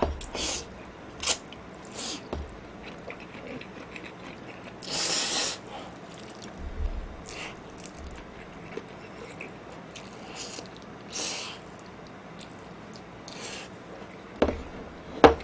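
A person slurping instant ramen noodles and chewing, in a string of short slurps a second or two apart, with one longer, louder slurp about five seconds in.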